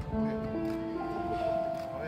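Background music: several sustained notes held together, shifting to new notes about a second in, without vocals.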